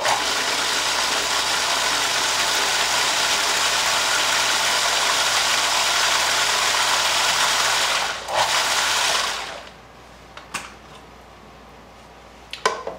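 Small electric mini food chopper running, blending roasted serrano peppers, garlic and olive oil into a sauce. It runs steadily for about eight seconds, stops for a moment, runs again for about a second and a half and cuts off, followed by a couple of light plastic clicks as the lid comes off near the end.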